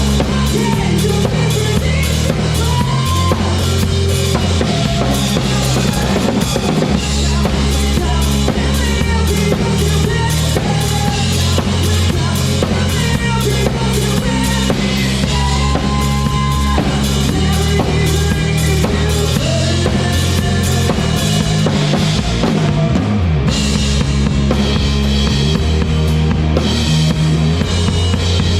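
A rock band playing live, with the drum kit to the fore: a steady kick-and-snare beat with cymbals, over sustained bass notes and other instruments. It is a soundcheck run-through of a song.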